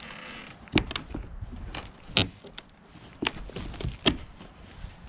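Claw hammer knocking and prying at old nails in rotted wooden garden-bed timbers: about half a dozen sharp knocks at uneven intervals, with scraping of wood between them.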